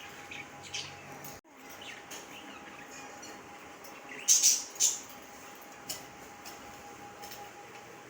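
Pet budgerigars chirping: scattered short, high calls, the two loudest about half a second apart near the middle.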